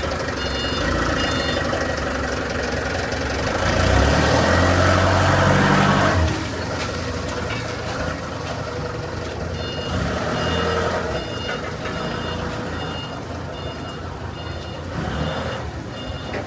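A reversing alarm beeping in short, evenly spaced pulses over a heavy diesel machine's running engine. The engine is briefly louder and under load from about four to six seconds in, then eases back.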